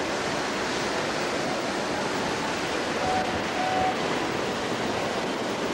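Steady rushing noise with no clear single source, and two short faint tones a little after three seconds in.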